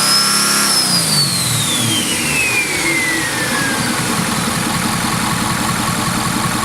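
Ford 6.7 L Power Stroke V8 turbo-diesel coming off a rev: the turbocharger's high whistle peaks about half a second in, then winds down in pitch over the next three seconds as the engine settles back to a steady idle.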